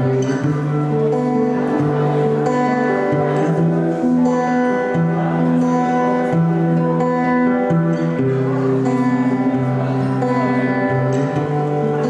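A band playing live: held notes and sustained chords over a bass line that moves to a new note about once a second.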